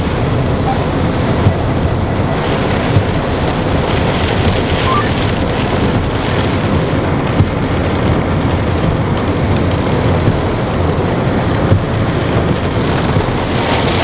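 Tornado-strength wind and driving rain beating on a car, heard from inside the cabin: a loud, steady rushing with a few short, sharp knocks.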